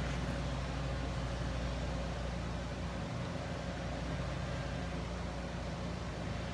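Steady low background hum with an even hiss; no distinct handling sound stands out.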